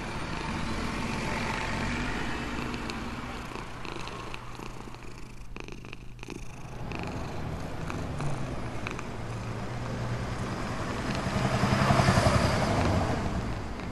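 Domestic cat purring: a low, rapidly pulsing rumble that fades out briefly about halfway through and comes back louder near the end.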